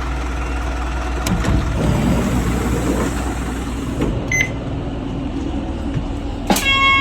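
Bus engine running with a low steady rumble, with a short high electronic beep about four seconds in and a louder electronic chime of several tones near the end.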